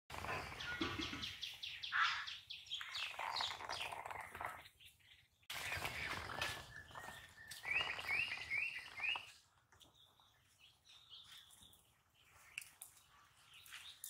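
Outdoor birdsong, many birds chirping and calling, busy for the first nine seconds or so. About eight seconds in, one bird gives a quick run of five curving notes. After that the chirping is quieter and sparser.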